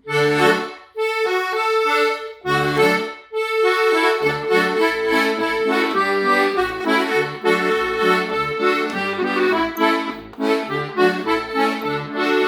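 Instrumental introduction of a gospel song, before the singing: sustained chords over a pulsing bass line, opening with a few short chords and then playing on continuously.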